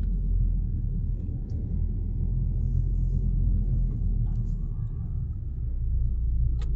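Low, steady rumble of a car's engine and road noise, heard from inside the moving car's cabin.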